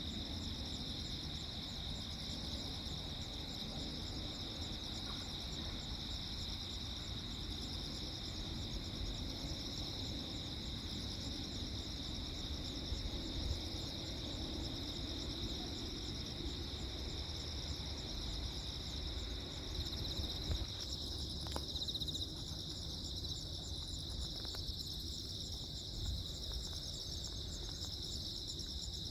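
A chorus of crickets chirping steadily in high, fast-pulsing trills, over a low, steady background noise.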